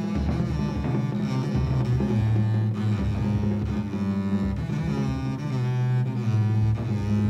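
Jazz double bass played with the bow, long low notes moving every second or so, over a drum kit's cymbals and drums.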